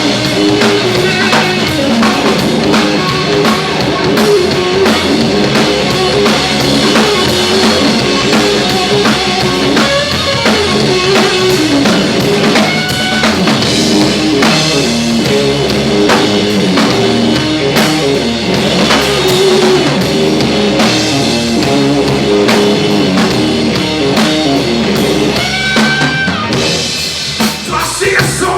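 Live blues-rock band playing an instrumental passage: guitar over a drum kit and bass at full volume, with bending guitar notes near the end.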